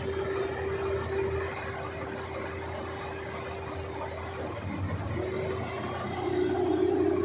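New Holland 3630 tractor's diesel engine running steadily with a constant whine over it; the whine drops out a little past halfway, then comes back and the engine gets louder near the end.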